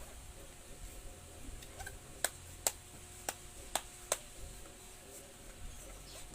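Five sharp clicks, roughly half a second apart, about two seconds in, and one more at the end: handling the laptop's plastic bottom cover as it is fitted back on before being snapped shut.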